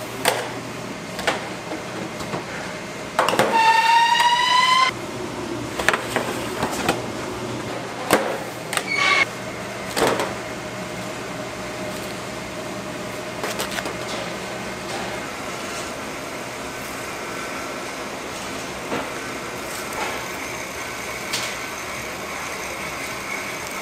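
Cake factory machinery running with a steady hum, scattered clanks and knocks. About three seconds in, a squeal rises slightly in pitch for about a second and a half, and a short high beep follows a few seconds later.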